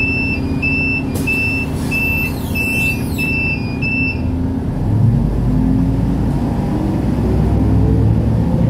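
City bus interior: an electronic warning beeper sounds about twice a second and stops about four seconds in, over the diesel engine's rumble. From about five seconds in the engine grows louder and rises in pitch as the bus pulls away.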